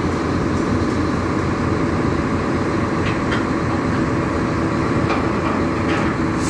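Terex AC250-1 all-terrain crane's diesel engine and hydraulics running with a steady drone and a steady hum, with a few faint clicks about halfway through and again near the end, while the crane's hydraulic suspension is being switched off after the outrigger jacks are set.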